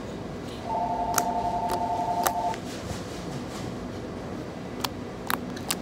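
Sticky slime being pressed and pulled by hand, giving sharp clicks and pops: three in the first half and three more near the end. A steady fan-like hum runs underneath, and a steady two-note tone sounds for about two seconds, starting under a second in.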